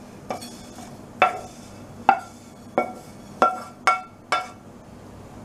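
Pan tapped with a wooden spatula to knock the last roasted sesame seeds out onto a plate: seven sharp, ringing clinks that come closer together toward the end.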